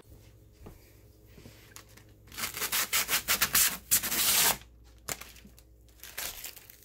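Protective plastic film being peeled off a PC case's clear side panel: a loud, noisy peel lasting about two seconds from a little over two seconds in, then a few shorter, fainter rustles of film and handling.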